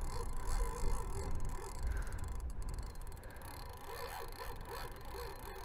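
Strong gusty wind buffeting the microphone, an uneven low rumble, over the steady wash of a shallow river's current.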